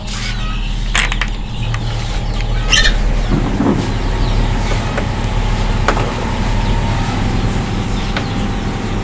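Steady mechanical hum of a running egg incubator, with a few sharp clicks and faint bird chirps over it.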